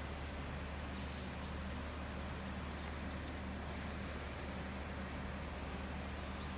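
Dayang cargo motor tricycle's engine idling with a steady low hum.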